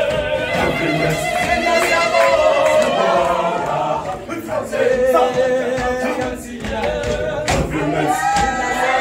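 An a cappella choir of schoolboys singing together, several voices holding and sliding between long notes. A couple of sharp hits cut through the singing about three-quarters of the way in.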